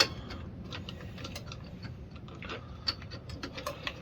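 Irregular small metallic clicks and taps from hand work on a lawn mower engine's governor parts, with a sharp click at the start and another a little before three seconds in.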